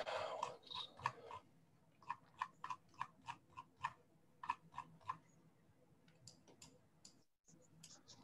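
Light clicking at a computer, a run of evenly spaced clicks about three a second for the first five seconds, then a few scattered fainter clicks, with a brief breathy noise at the very start.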